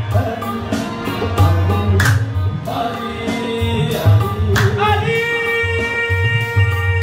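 Live qawwali: harmoniums and a steady hand-drum rhythm under singing voices, with a long note held from about five seconds in.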